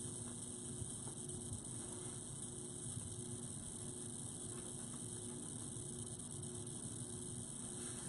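Steady electrical mains hum with a high hiss under it, with a few faint ticks.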